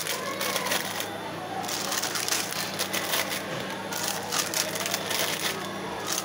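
Crisp packets crinkling and rustling in irregular crackles as they are pushed into a vending machine's spiral coils, over a low steady hum.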